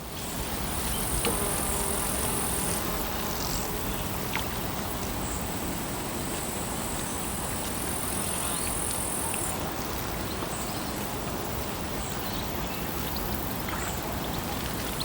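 Lake water ambience: a steady, even wash of water noise. A high, steady buzz comes in twice for a few seconds.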